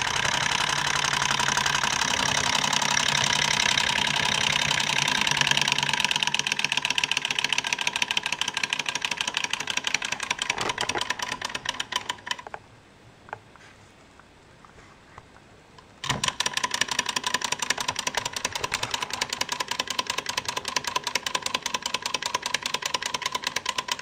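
Pre-1910 Bing Stirling hot-air engine running, its piston and linkage clattering in a rapid, even ticking. About halfway through the clatter drops away abruptly for about three seconds, then comes back just as suddenly.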